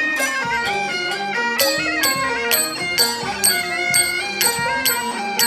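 Background music: a stepping melody line, joined about a second and a half in by a regular beat of about two strikes a second.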